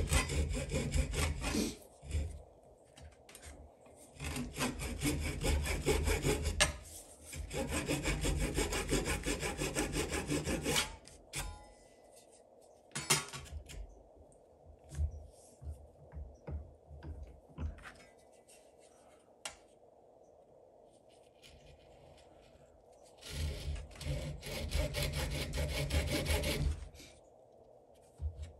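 Fine-toothed handsaw cutting through a wooden lure blank held in a vise, in quick back-and-forth strokes. There are two spells of sawing, then a pause of about twelve seconds with scattered light taps, then sawing again near the end.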